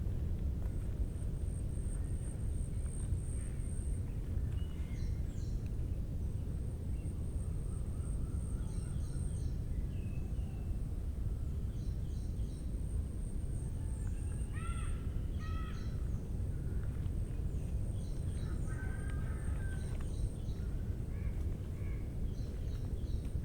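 Birds calling: scattered short chirps, with two arched calls about halfway through. Underneath are a steady low rumble and a steady high-pitched buzz.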